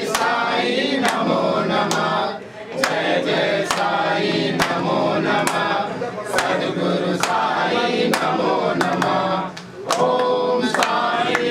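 A group of voices singing a devotional chant, with brief breaks between phrases about two and a half seconds in and again near ten seconds. A sharp percussive strike keeps the beat about once a second.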